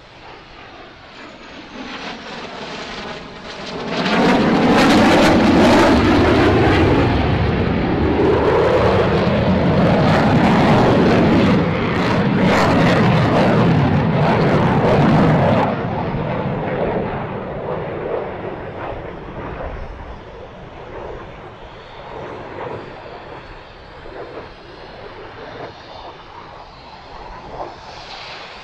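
Saab Gripen E fighter jet's turbofan engine during a display flyby: the jet noise swells over about four seconds, stays loud for some twelve seconds as the aircraft passes, then fades to a lower, uneven rumble as it moves away.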